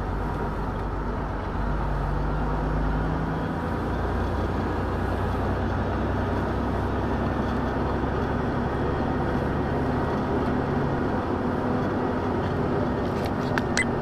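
Semi truck's diesel engine running as the truck rolls slowly, a steady drone heard inside the cab whose pitch shifts slightly a couple of times as the speed changes. A few faint clicks near the end.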